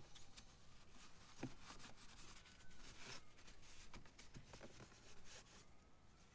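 Faint rustling and rubbing of a paper towel wiping spilled oil off a generator's casing, with a few soft clicks; otherwise near silence.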